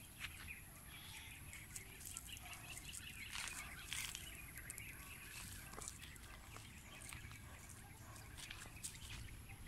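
Faint outdoor ambience: scattered light crackles and rustles of dry leaf litter as a dog moves about sniffing at a bush, with faint bird calls.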